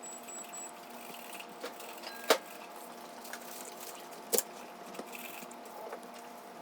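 Two sharp clicks about two seconds apart, with a few fainter ticks, over a steady low hum.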